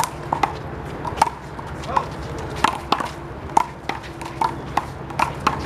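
A one-wall handball rally: a small rubber handball is slapped by hands and smacks off the wall and court about a dozen times at an irregular pace. Short sneaker squeaks on the court come between the hits.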